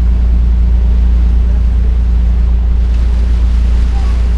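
A boat's engine running with a steady, loud low drone, heard from on board.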